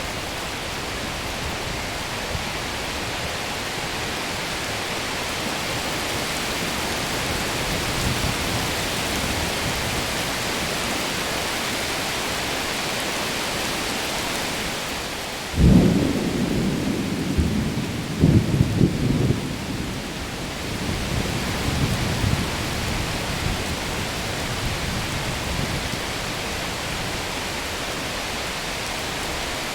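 Steady rain with a thunderclap about halfway through: a sudden crack, a few more cracks a couple of seconds later, then a rumble that fades over several seconds.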